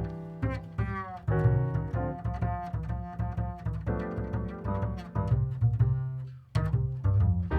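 Instrumental background music with a plucked bass line and quick string notes.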